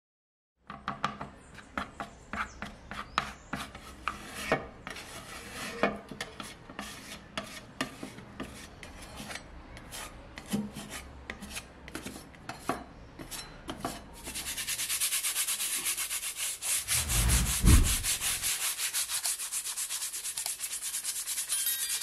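Fingers rubbing and spreading white filler over a metal typewriter panel, an uneven run of short scrapes and light taps. About two-thirds of the way in this gives way to louder, fast, steady sanding of the metal with a sandpaper disc worked by hand, with a low thud during the sanding.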